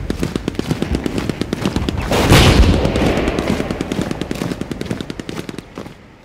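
A rapid rattle of sharp cracks, many a second, with a louder burst about two seconds in, fading out toward the end.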